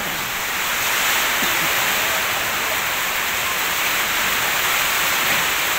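Heavy storm rain pouring down steadily, a dense even hiss.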